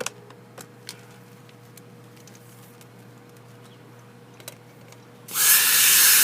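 A few faint clicks, then about five seconds in a loud, steady hiss of rushing air starts suddenly and keeps on.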